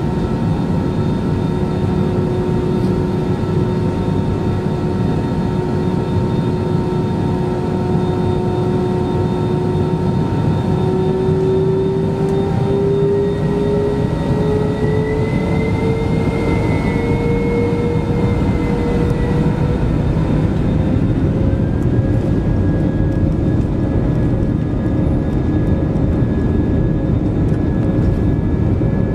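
Airbus A320's jet engines heard inside the cabin: a loud, steady rumble with an engine whine. The whine rises in pitch for several seconds around the middle as the engines speed up.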